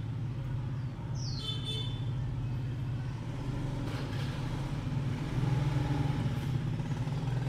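A steady low mechanical hum, like a motor running, with a short high rising chirp about a second and a half in.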